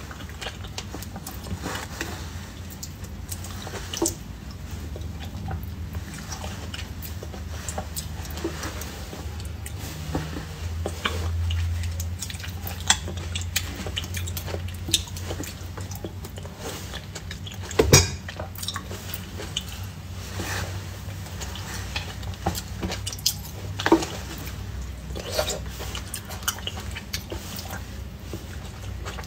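Close-up eating sounds of hardy kiwi berries (kiwi berries) being bitten and chewed: wet, squishy mouth noises with many small sharp clicks, the loudest about halfway through, over a steady low hum.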